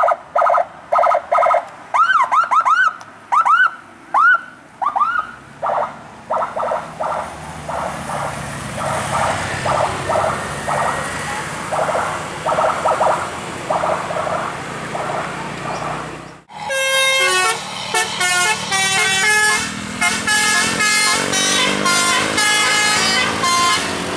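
Basuri musical car horns sounding: rapid repeated toots with a few swooping chirps, then, after a sudden cut about two-thirds of the way in, several tones stepping through a melody.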